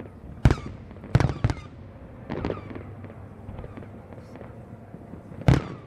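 Aerial firework shells bursting: about five sharp booms, four in the first two and a half seconds and one loud one near the end, each with a short echoing tail, over faint crackling in between.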